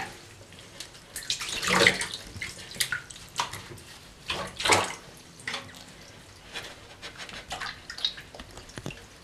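Water splashing and sloshing in a bathtub in several short bursts as a wet kitten is held and washed.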